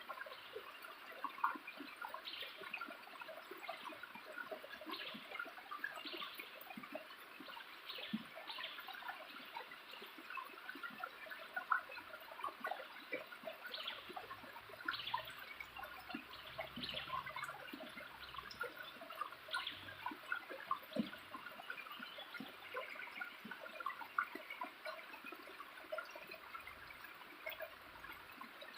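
Small waterfall splashing and trickling: a steady run of many little drips and splashes.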